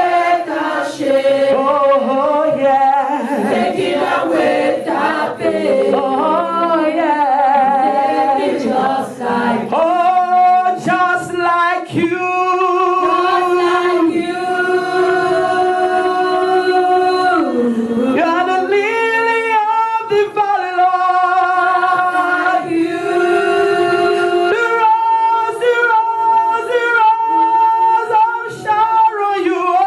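Voices singing a gospel worship song together, with long held, sliding notes.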